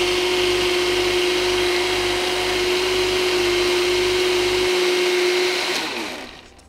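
Quigg smoothie maker's motor running at full speed, blending raspberries, rum, syrups and crushed ice into a daiquiri, with a loud, steady whine. Near the end the motor stops and winds down, its pitch falling.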